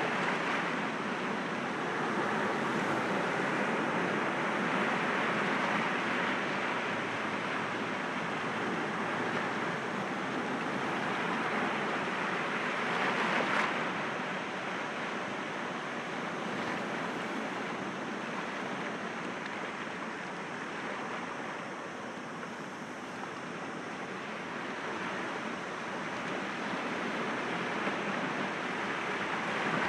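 Sea waves breaking against rocks: a continuous wash of surf that swells and eases, loudest about 13 seconds in.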